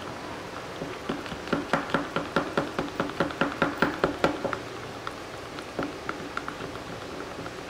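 A stir stick knocking against the sides of a plastic cup of clear epoxy resin as it is mixed. It gives a quick run of light clicks, about five a second, lasting a few seconds, then a few scattered clicks.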